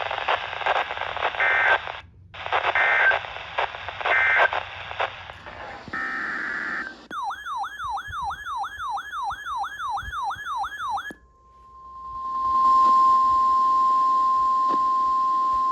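Emergency Alert System audio over radio static: three short data-burst squawks, then a warbling tone that sweeps up and down about two and a half times a second for roughly four seconds. After a brief silence, a steady NOAA Weather Radio alert tone starts about twelve seconds in and runs on, the signal that a new warning broadcast is beginning.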